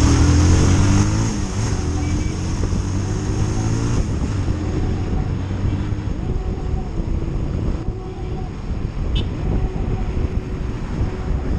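Bajaj Pulsar 220F's single-cylinder engine pulling hard through the gears, its note climbing over the first few seconds, then holding a steadier cruise as the throttle eases. Wind noise rushes over the rider's helmet microphone.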